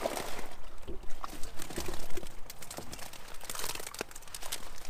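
Irregular rustling and crackling with many small clicks, the sound of a fishing net being handled as the catch is brought out to be shown.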